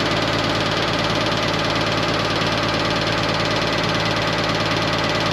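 Freightliner M2 diesel engine idling steadily.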